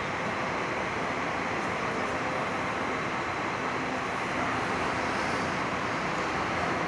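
Steady noise of bus traffic, with the diesel engines of intercity coaches running.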